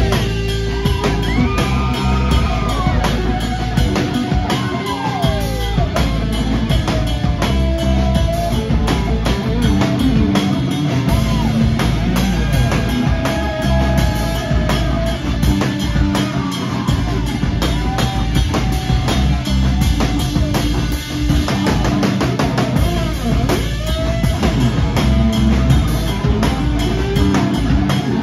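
Live rock band playing an instrumental passage: electric guitar lead lines with notes bent and slid up and down, over a full drum kit and bass guitar.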